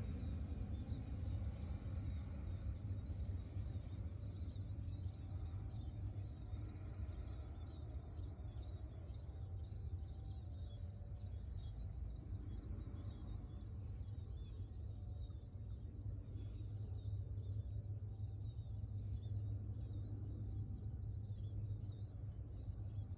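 Faint, steady low drone of a distant twin-engine turboprop aircraft flying away, with high chirping repeating several times a second in the background.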